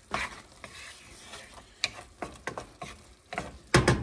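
Wooden spoon stirring and scraping diced apples in a thick, sticky glaze in a nonstick frying pan: a run of uneven scrapes and knocks, loudest near the end.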